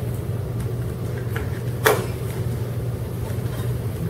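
Steady low hum of room noise in a lecture hall, with one sharp click about two seconds in.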